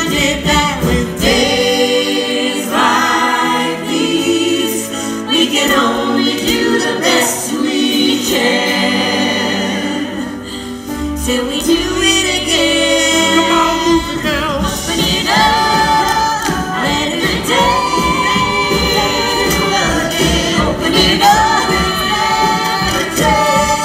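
Broadway cast singing together over a live pit band in a musical-theatre number. Sustained bass notes underpin the first half, and a steady beat takes over about halfway through.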